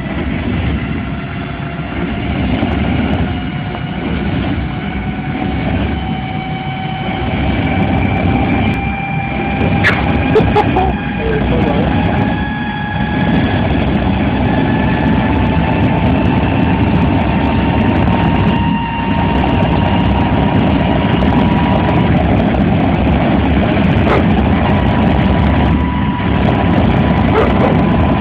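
Jet engine running with a loud roar and a whine that climbs slowly in pitch as it spools up, then holds steady near the end.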